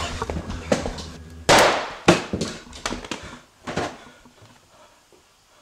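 A single loud handgun shot about a second and a half in, echoing briefly in a small room, followed by a second sharp crack and quieter knocks that fade away.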